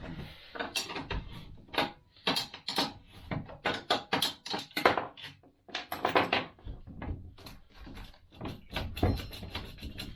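Irregular metallic clicks and clunks, a few a second, from hand tools working the Honda Grom's rear axle nut as it is broken loose and backed off.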